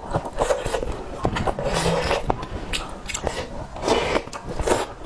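Close-miked eating of tangfan, rice in soup: repeated wet chewing and slurping mouth sounds, with a few light clicks.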